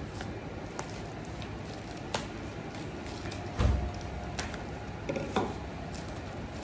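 Cling film being pulled from its roll and pressed around a tray: light crinkles and scattered clicks, with one dull thump about halfway through.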